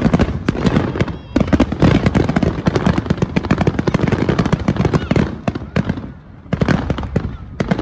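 Aerial fireworks display: a rapid, dense barrage of shell bursts and crackling reports, many a second. It eases briefly about six seconds in, then picks up again.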